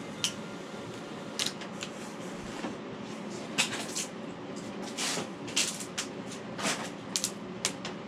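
About ten short, scratchy rustles and scrapes at irregular intervals over a steady low hiss: foam board and a hot knife being handled while cutting a model train layout's creek bed.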